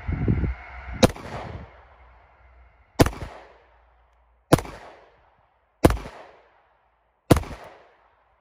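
Five slow, deliberate 9mm pistol shots from a Glock 19 Gen 5, spaced about one and a half to two seconds apart, each trailing off in an echo. They are a test group fired to check a red-dot sight's zero after a windage adjustment.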